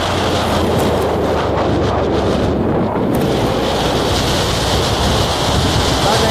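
Steady, loud wind rushing over the microphone, over a low rumble.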